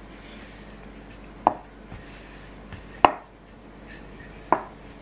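Wooden rolling pin rolling out bread dough on a wooden tabletop, knocking sharply against the wood three times, about a second and a half apart, with faint rubbing between the knocks.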